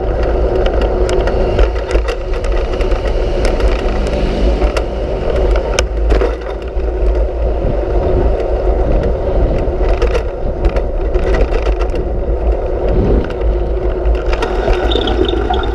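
Steady wind rumble and road noise on a handlebar-mounted action camera while cycling on city streets, with frequent small knocks and rattles from the bike and mount over the pavement.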